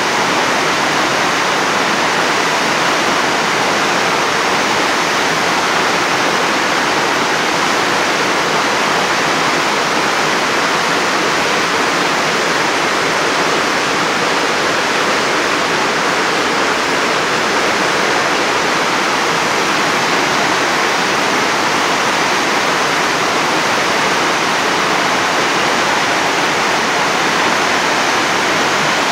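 Aber Falls, a tall waterfall pouring down a rock face into a plunge pool, rushing loudly and steadily.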